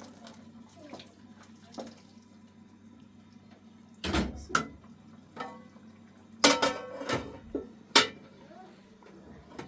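Metal kitchenware clattering: a couple of sharp knocks about four seconds in, then a louder run of clanks, some with a brief ring.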